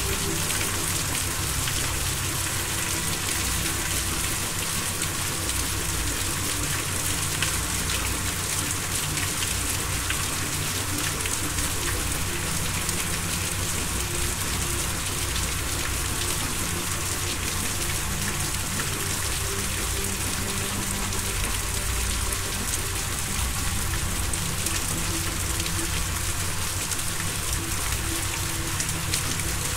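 Steady hiss of rain-like noise with a low hum beneath it: an ambient relaxation soundscape.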